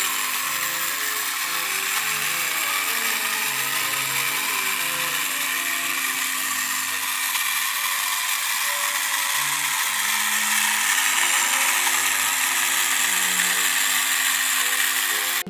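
Vacuum cleaner running steadily with a loud motor and suction hiss, cutting off suddenly at the end.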